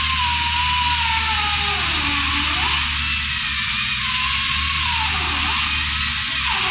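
Pneumatic chain saw cutting into a stone block: a loud, steady hiss with a whine from the air motor that dips in pitch a few times as the chain bites.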